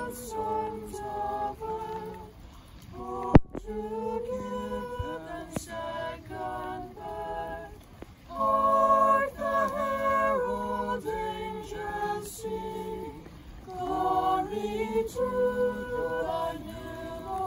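A small mixed group of women's and children's voices singing a Christmas carol a cappella, in phrases of held notes with short breaths between them. A single sharp click a little over three seconds in.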